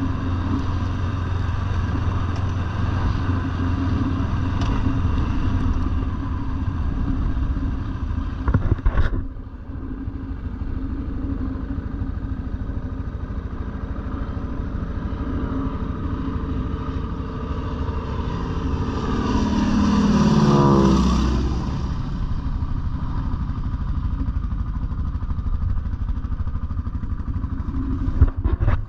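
Quad bike engine running under way, stopping suddenly about nine seconds in, followed by a steadier quieter engine hum. Roughly two-thirds of the way through, a light aircraft flies low past: its engine note swells, then drops sharply in pitch as it goes by.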